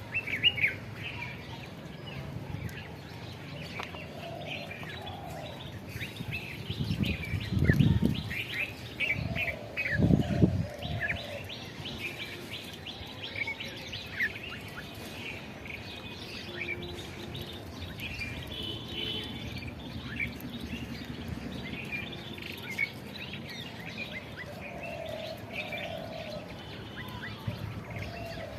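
Small birds chirping and calling over and over, with short high notes throughout and some lower calls. Twice, about seven and ten seconds in, a loud low rumble lasting about a second rises over the birdsong.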